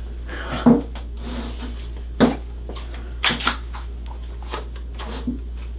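A handful of short knocks and clicks over a steady low hum. The loudest comes about a second in, two more fall close together past the middle, and a few fainter ones follow.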